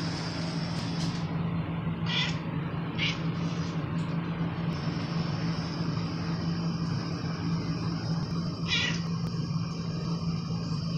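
A ginger tabby cat giving a few short, high meows, two close together early and one more near the end, over a steady low hum.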